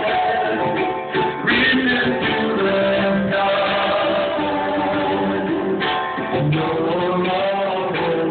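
Live worship band music: guitar and other instruments playing a song, with singing voices.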